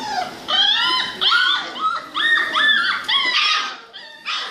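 A litter of young puppies whining and yelping in a run of short, high-pitched cries, several voices overlapping, each cry rising and falling in pitch. The cries stop about three and a half seconds in.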